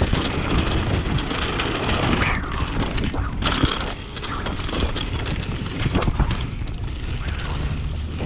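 Mountain bike running fast down a rough dirt trail: rushing wind on the microphone and tyre noise, with frequent sharp clacks and rattles as the bike hits bumps. The noise eases briefly about four seconds in.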